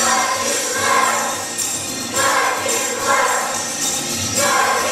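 Music: a choir singing with jingling percussion, the sung phrases swelling about once a second.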